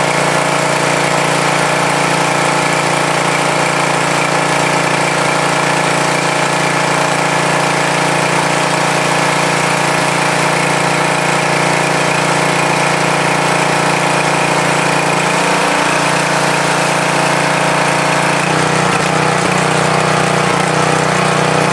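TEANDE 4200 PSI gas pressure washer's engine running steadily under load, with the hiss of a high-pressure water jet from a 15-degree nozzle. The engine note shifts slightly near the end.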